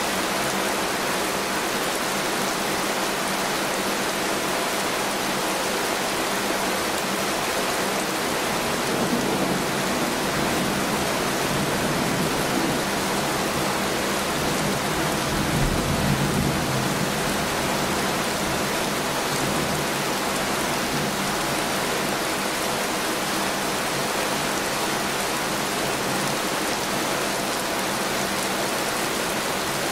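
Steady heavy rain, an even hiss of downpour, with a low rumble that swells and fades around the middle.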